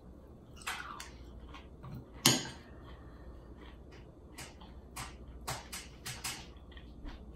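Eating granola: a spoon clinking and scraping in a ceramic bowl and crunchy chewing, heard as a string of short clicks and crunches, with one sharper knock about two seconds in.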